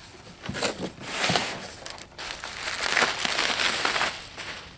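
Packing material crinkling and rustling in irregular handfuls, with small knocks, as a new radiator is handled and unwrapped.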